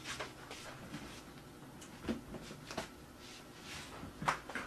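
Quiet room with a few scattered soft knocks and clicks, a couple more distinct about two seconds in and again near the end.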